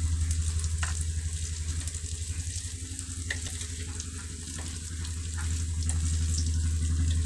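Breaded banana pieces deep-frying in oil in a wok: a steady sizzle over a low, pulsing hum, with a few light clicks.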